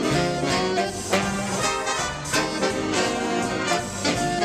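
Swing music with brass and a steady beat.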